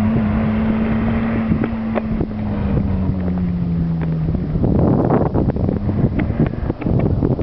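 VW Polo G40's supercharged four-cylinder engine running hard under load as the car passes and corners, its note falling gradually over the first four seconds. After that, gusts of wind on the microphone partly cover it.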